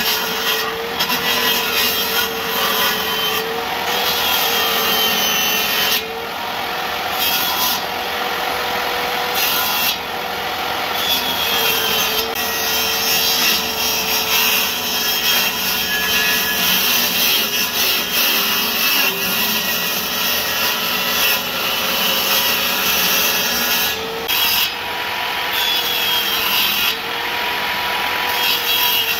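Table-mounted circular saw running and cutting through the ends of bamboo slats on a cage panel, the motor's steady tone sagging slightly as the blade works through the bamboo, in several passes with short breaks.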